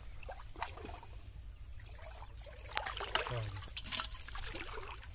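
Shallow muddy water sloshing, trickling and dripping as hands grope through it, in small irregular splashes, with a sharper splash about four seconds in.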